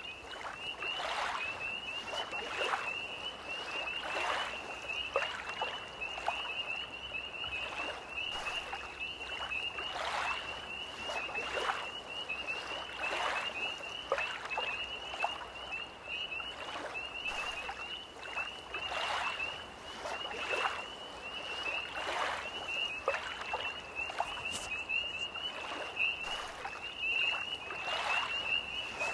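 Tree frogs trilling in a steady, high, pulsing chorus, with small lake waves lapping in soft splashes every second or two.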